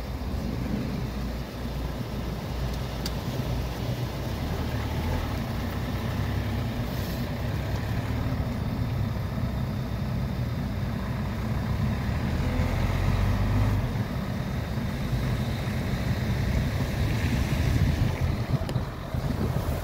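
Car driving, heard from inside the cabin: a steady low rumble of engine and tyre noise that grows slightly louder in the second half.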